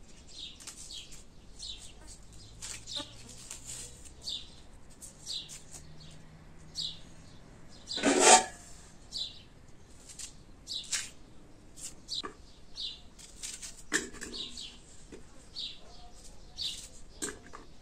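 Small birds chirping, short high chirps about two a second, with one louder brief burst of noise about eight seconds in.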